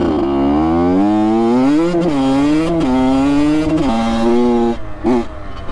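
Honda CR85's two-stroke single-cylinder engine being revved while warming up: the pitch climbs and falls back about four times, then one quick blip near the end.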